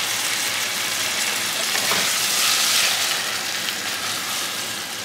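Shrimp sizzling in melted butter in a hot frying pan: a steady hiss that grows a little louder about halfway through.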